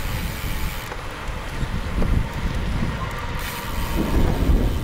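Wind buffeting the microphone of an action camera carried on a moving bicycle, with rumbling road and tyre noise; the rush grows louder about four seconds in.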